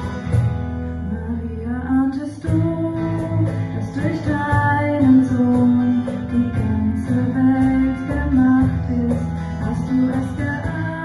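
Music: singing accompanied by guitar.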